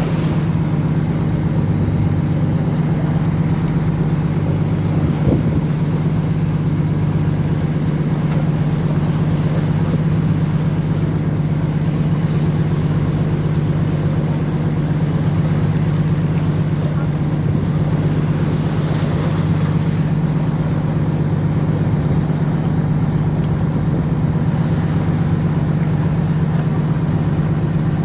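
Engine running steadily at an unchanging pitch: a constant low hum with a haze of noise over it.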